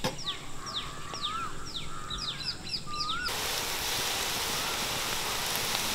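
Birds calling, with many short falling chirps and a few rising whistles. About three seconds in, it switches abruptly to the steady sizzle of onions, garlic, chillies and curry leaves frying in oil in a kadai, with the birds still faintly heard.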